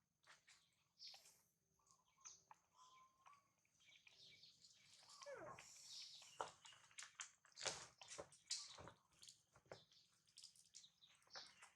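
Faint, scattered clicks and rustling from monkeys, with a short falling squeak about five seconds in.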